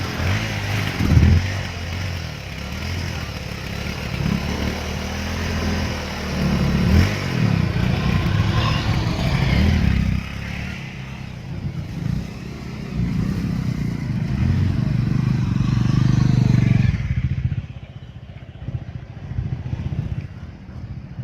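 Royal Enfield Himalayan 450's single-cylinder engine revving up and down as the motorcycle rides through a river crossing, with a broad rushing noise of water over it. About three-quarters of the way through, it all drops off to a much quieter run.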